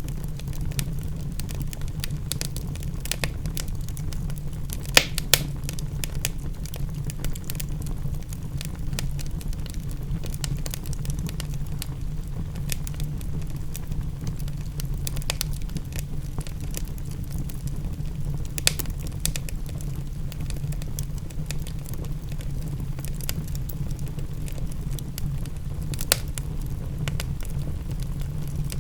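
Wood fire crackling and popping over a steady low rumble, with a few louder pops about five seconds in, near nineteen seconds and near twenty-six seconds.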